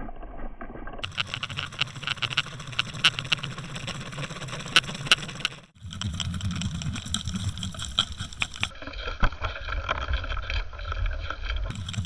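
Water rushing past an underwater fishing camera as it is pulled through the water with a lure, with many sharp clicks and knocks. The sound changes abruptly several times, with a brief dropout just before the middle.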